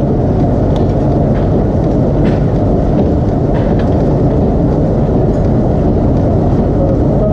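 Steady low rumble of forge machinery running, with a few faint metallic clicks.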